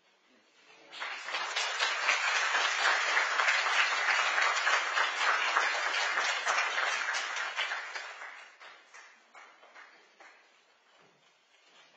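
Congregation applauding: clapping breaks out about a second in, holds for several seconds, then dies away into a few scattered claps near the end.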